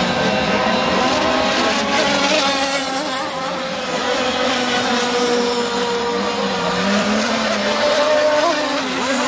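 A pack of petrol two-stroke RC racing boats in the 26–35cc class running at speed together, several engine notes at different pitches overlapping. One note rises and falls as a boat passes close about eight seconds in.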